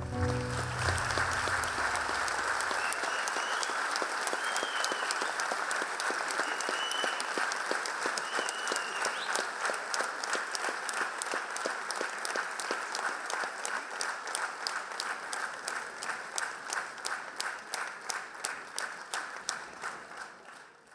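Large audience applauding in a hall; the clapping falls into rhythmic clapping in unison in the second half and dies away near the end.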